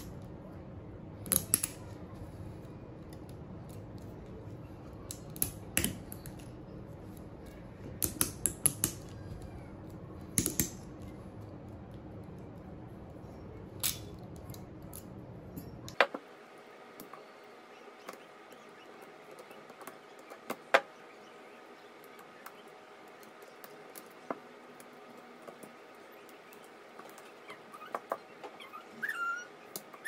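Sharp metallic clicks and snaps, some single and some in quick clusters, as pliers pry and tear spot-welded nickel strip off the tops of 18650 lithium-ion cells. About halfway through the clicks become fainter and sparser.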